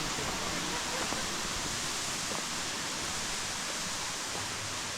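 Steady rush of falling and flowing water, an even hiss with no breaks.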